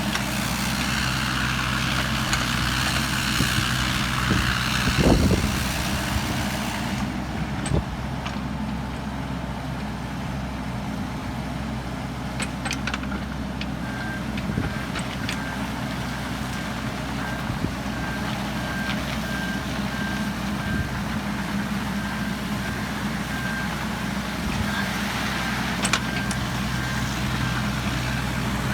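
Wacker Neuson EZ28 mini excavator's Yanmar 1.267 L diesel running steadily, working harder for the first several seconds with a loud clunk about five seconds in. About halfway through, a repeating single-pitch warning beep starts, typical of the machine's travel alarm.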